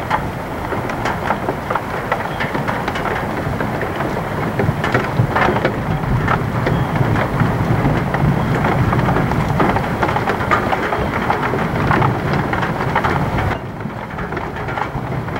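Heavy rain falling, with many small sharp hits of drops close to the microphone and a low rumble that swells in the middle. The sound drops off suddenly near the end.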